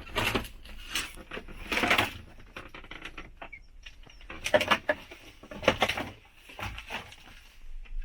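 Footsteps and knocks on the metal floor inside an old jet aircraft's fuselage: five or six clattery bursts spread out unevenly, the loudest two just past halfway.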